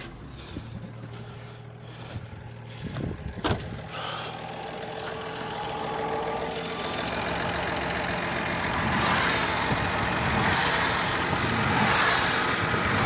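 FB Holden's straight-six engine being started: a low hum at first, a sharp knock about three and a half seconds in, then the engine runs, growing louder for several seconds before settling steady. The fan belt is driving the alternator on a makeshift roadside bracket.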